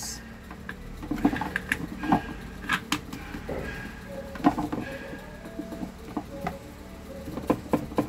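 Scattered light clicks and knocks of plastic fan parts being handled as the blade lock nut is fitted onto a Mondial fan's motor shaft.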